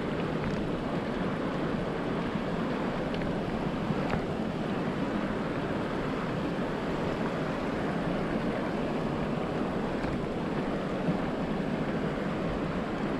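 A steady rushing noise that holds an even level throughout, with a few faint ticks over it.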